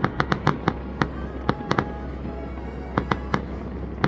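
Fireworks exploding in a series of sharp bangs and crackles, packed close together at first, thinning out in the middle, then picking up again near the end.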